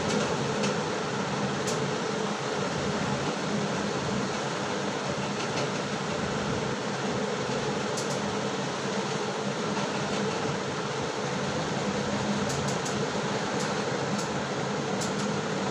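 Steady whirring hum of a cooling fan, with a few faint clicks scattered through it.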